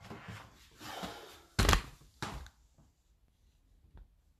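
Soft rustling, then two sharp knocks about half a second apart, the first the louder.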